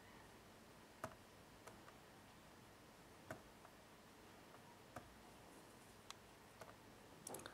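Laptop clicks: about eight short, sharp clicks scattered over a faint steady hiss, with a quick cluster of them near the end.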